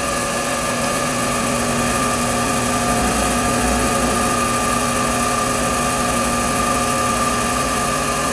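King Canada 7x12 variable-speed mini metal lathe running with a steady whine, its tone settling just after the start, as a 15/32-inch drill bit in the tailstock is fed into a spinning white plastic chain roller.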